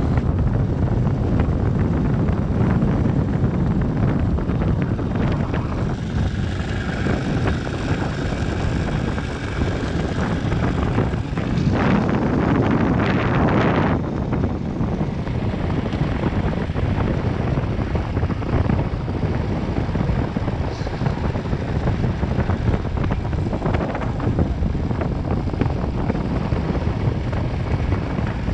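Motorcycle engine running as the bike rides along a dirt road, mixed with heavy wind noise on the microphone. A louder rush of noise lasts about two seconds near the middle.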